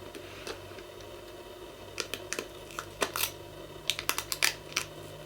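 A scatter of light, sharp clicks and taps, about a dozen, starting about two seconds in: hands and small parts being handled on an opened tube radio's chassis while working on its dial string.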